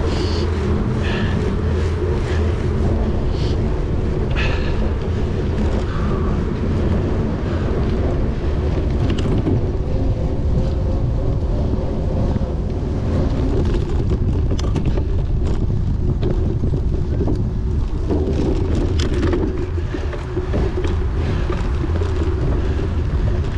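Wind rushing across the microphone while a bicycle is ridden hard off-road, with scattered clicks and rattles from the bike over rough ground.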